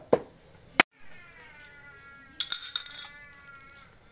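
Two sharp metal taps as a hammer drives a new oil seal into a motorcycle front-fork tube. After a cut there are a few light metallic clinks over a faint, drawn-out wavering tone.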